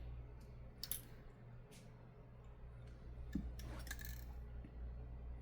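A few faint clicks and taps from handling a smartphone and small repair tools, spaced irregularly, over a low steady hum.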